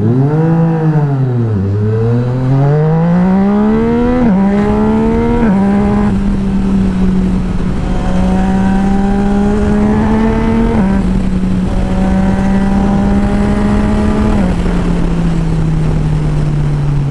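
Yamaha MT-09's three-cylinder engine through an Akrapovic titanium full exhaust, accelerating hard with the pitch climbing and dropping at each upshift. After several shifts it settles into a near-steady cruise, then winds down as the throttle eases off near the end.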